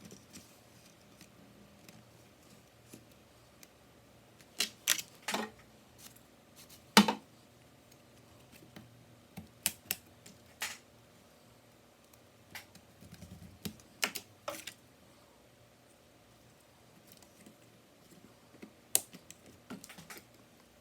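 Scattered sharp clicks and taps of a small screwdriver, screws and parts being handled on an open MacBook Air, as the logic board is screwed loosely in place. The clicks come singly or in short clusters with quiet gaps between, the loudest about seven seconds in.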